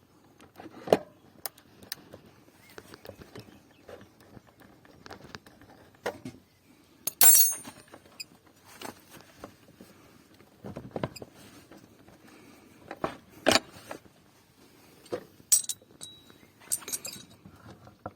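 Irregular metallic clinks, clunks and knocks of tools and loose wheel parts being handled while a motorcycle front wheel is taken off its forks, the spindle and speedometer drive coming free. A few strikes stand out, one bright clink about halfway through and a short ringing clink near the end.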